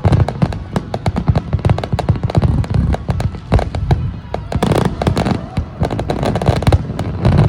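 Fireworks finale barrage: many shells bursting in rapid, overlapping succession, with dense crackling bangs over deep booms.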